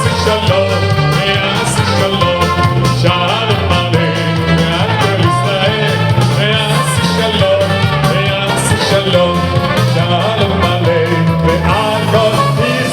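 A song: a singing voice over instrumental backing with a pulsing bass line.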